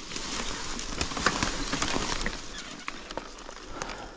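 Rustling and crackling of dry leaves and twigs, with many small sharp snaps, loudest in the first half.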